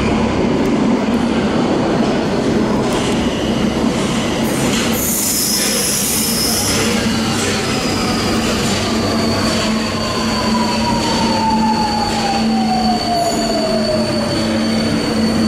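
Alstom Metropolis metro train pulling into an underground station and braking to a stop, with a high squeal about five seconds in. Its electric drive whine then falls steadily in pitch as the train slows, over a steady hum.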